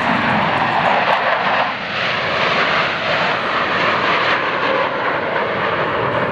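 Jet engine noise of Thunderbirds F-16 fighter jets flying past low over the runway. The sound is loud and steady throughout.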